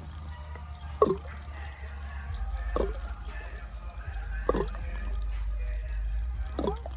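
Water dripping slowly, single drops falling about every second and a half to two seconds over a steady low hum.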